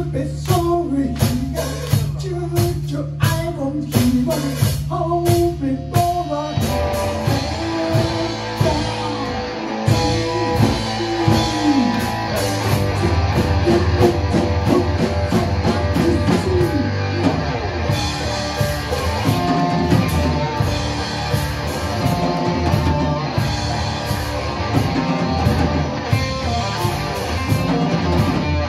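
Live rock band playing, with electric guitars, drum kit and singing. From about six seconds in the sound becomes a fuller, denser guitar-driven passage.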